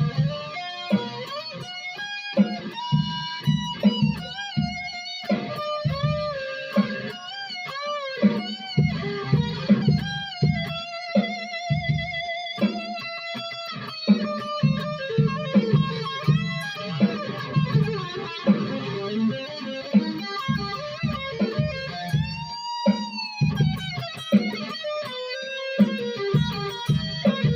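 Electric guitar, a modified B.C. Rich M-Bird, played through an amp: lead lines with string bends and wavering vibrato over a steady low pulse.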